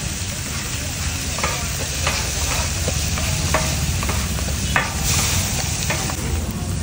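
Chicken frying on a flat street-stall griddle (tawa), sizzling steadily, with a metal spatula clinking and scraping against the griddle and a steel bowl a dozen or so times.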